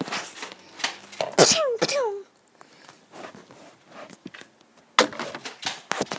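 Scattered clicks and knocks of a foam-dart skirmish, with a short two-part cry from a person about a second and a half in, falling in pitch.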